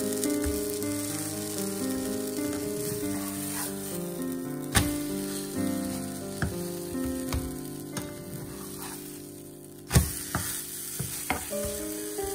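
Banana pancake sizzling as it fries in oil in a nonstick pan, with a spatula knocking and scraping against the pan several times, the loudest knock about ten seconds in. Soft piano music plays along.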